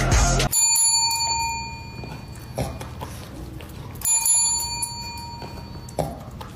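Chrome desk service bell struck twice by a dog's paw, about half a second in and again about four seconds in, each ding ringing out and fading over about two seconds.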